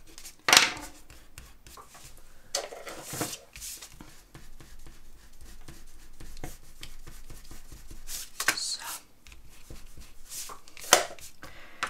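Hands pressing and rubbing a glued card-stock panel flat on a craft mat, with scattered paper rustles and rubbing. There are sharper knocks about half a second in and near the end.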